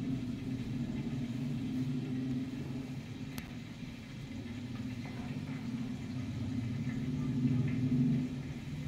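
A steady low mechanical hum, like a motor or engine running, with one click about three and a half seconds in.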